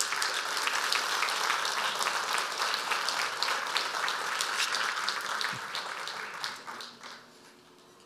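Audience applauding, a dense patter of many hands clapping that dies away over the last second or two.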